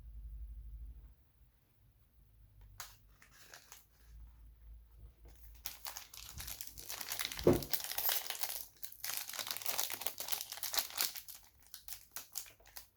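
Plastic-foil trading-card pack wrapper crinkling and tearing as the pack is handled and opened, starting about halfway through; before that it is fairly quiet apart from a single click.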